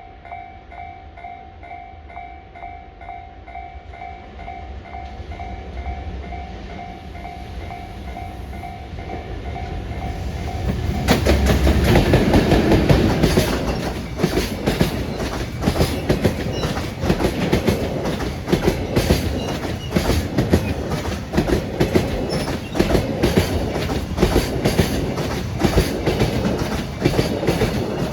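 Japanese level-crossing warning bell ringing in steady repeated pulses while a freight train's rumble builds. About eleven seconds in, the train reaches the crossing and runs past, its wagon wheels clacking over the rail joints.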